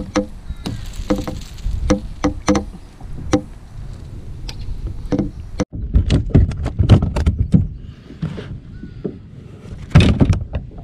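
Repeated hollow knocks and clicks on a kayak, some ringing briefly, over a low rumble. The sound breaks off for an instant just before the six-second mark.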